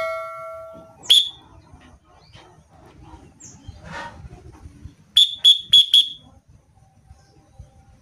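Short shrill whistle blasts calling a pigeon home: one toot about a second in, then four quick toots in a row a little past the middle. It opens on the fading ring of a chime.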